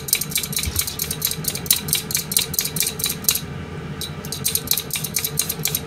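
Hand-held julienne peeler scraping down a carrot, shredding it into thin strips: quick rasping strokes about five a second, with a short break a little past three seconds before the strokes start again.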